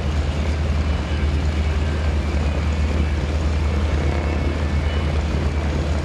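Two Yak-55 aerobatic planes' nine-cylinder radial engines running at low power as they taxi together: a steady low rumble.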